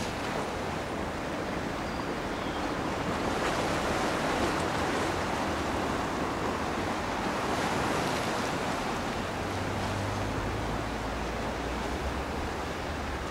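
Wind rushing over the microphone above the wash of choppy sea, a steady noise. A low steady hum joins in about two-thirds of the way through.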